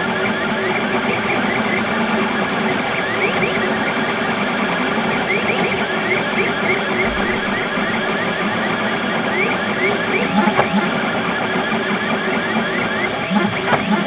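XYZ da Vinci Mini W+ 3D printer printing: its stepper motors whine in short rising tones, several a second, as the print head moves back and forth, over a steady mechanical hum.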